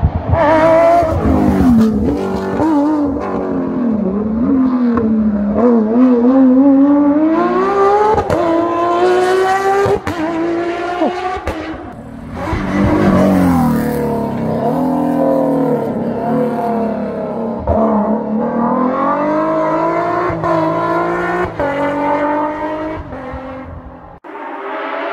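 Rally car engine revving hard through a bend, loud, its pitch climbing and falling again and again with gearshifts and throttle lifts. It cuts off sharply near the end.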